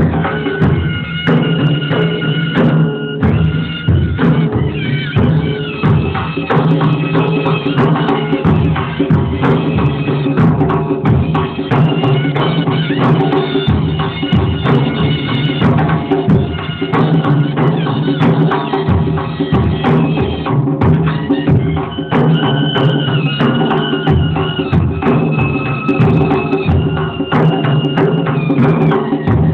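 Several nagara kettle drums beaten together in a fast, continuous rhythm, with a high wavering melody line held over the drumming.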